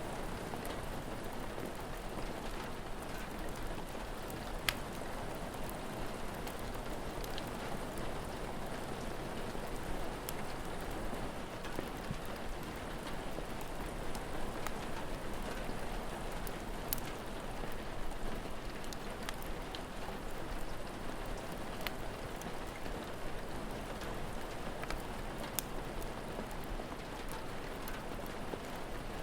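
Steady rain, with a few sharp crackling pops from a wood fire scattered through it.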